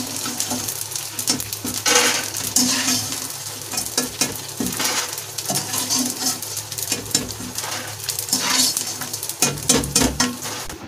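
Fried edible gum (gond) sizzling in hot ghee in an aluminium kadhai, with a wire-mesh skimmer scraping and clinking against the pan over and over as the puffed, fully fried pieces are scooped out.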